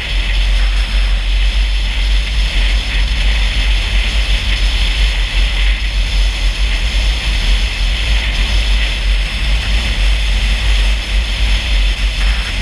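Car driving along a road: a steady, loud rumble of engine and road noise, with an even hiss on top.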